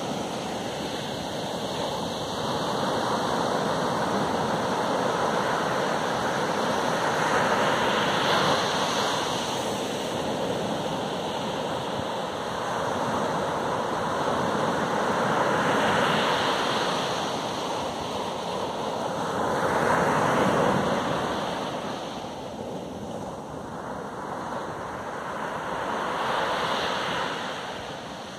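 Ocean surf breaking on a sandy beach: a steady rush of water that swells and fades every four to eight seconds as each wave breaks and washes up the sand.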